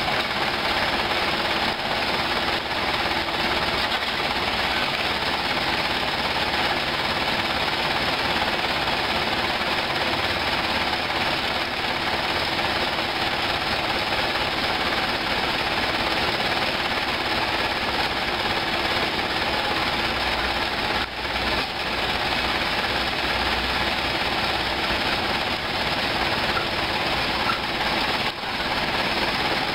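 Mitsubishi Colt dump truck's diesel engine running steadily with its tipper bed raised after dumping rocks.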